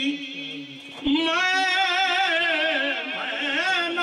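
A man singing a Punjabi devotional naat, unaccompanied. After a brief lull, about a second in, he starts a long held note whose pitch wavers.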